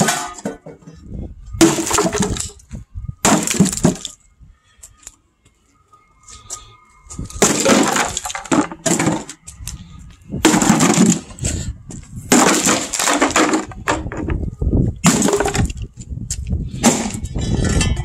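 Wooden speaker cabinets being smashed apart on a concrete floor: a series of loud crashes with cracking and splintering wood, about a second or two apart, and a pause of about two seconds early on.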